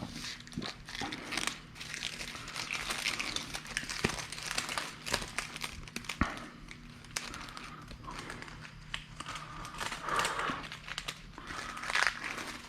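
Packaging being crumpled and handled: irregular crinkling and crackling with sharp clicks, louder about ten and twelve seconds in.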